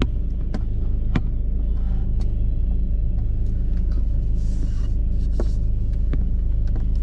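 Steady low road rumble inside a car's cabin while driving in traffic, with a few scattered light clicks and a brief hiss near the middle.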